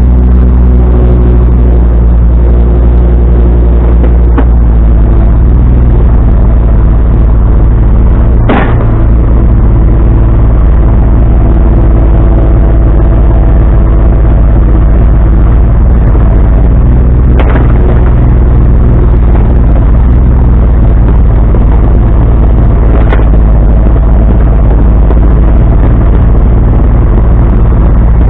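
Heavy-equipment diesel engine running loud and steady close by, with a few sharp knocks scattered through.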